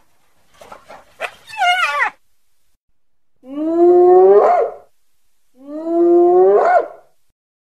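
Spotted hyena calling: a brief burst of chattering calls that fall in pitch, then two long whoops about two seconds apart, each starting low and sweeping up in pitch at the end.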